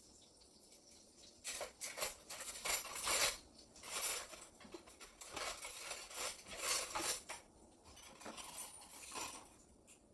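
Dishes and silverware clinking and clattering as they are handled, in an irregular run of sharp clinks from about a second and a half in until near the end.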